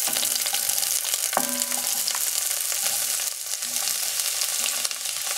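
Chopped onion and bell peppers sizzling as they drop into hot oil in a pot, with a couple of light knocks of a wooden spoon scraping them out of the bowl.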